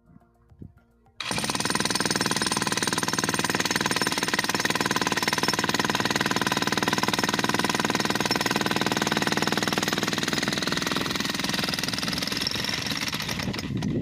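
A 25 kg electric breaker (demolition hammer) chisels into the edge of a reinforced concrete slab, breaking the concrete away from the steel rebar. It starts abruptly about a second in as a loud, steady stream of rapid blows and stops near the end.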